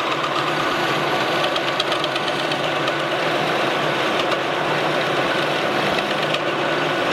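Metal lathe running under a cut, as a hand-ground high-speed-steel parting tool fed in by hand cuts a groove into a half-inch shaft; a steady mechanical sound.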